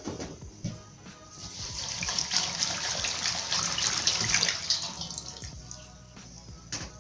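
Water running from a tap as aloe leaves are rinsed under it, swelling about a second and a half in and easing off near the end. Background music plays throughout.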